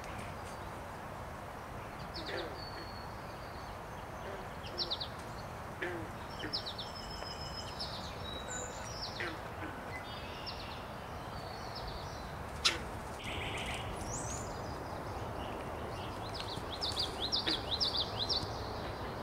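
Several small birds chirping and singing in short phrases over a steady background hiss, with a quick run of notes near the end. A single sharp click about two-thirds of the way in stands out as the loudest sound.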